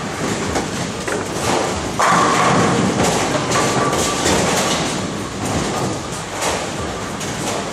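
Bowling ball rolling down the lane with a rumble, then crashing into the pins about two seconds in, over the steady clatter and rumble of a bowling hall's other lanes and pinsetters.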